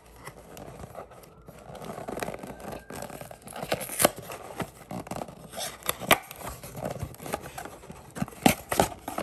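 Paperboard card box being opened by hand: fingers scraping and prying at the glued top flap, with scratchy rustling and sharp clicks as the cardboard gives way, loudest about four, six and eight and a half seconds in.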